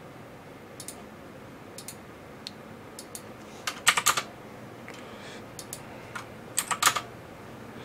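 Computer keyboard typing: scattered single key clicks, with two short flurries of keystrokes about four seconds in and again near the end.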